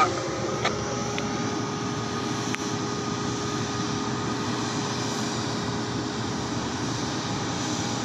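Steady drone of heavy diesel machinery running, with a few faint clicks in the first few seconds.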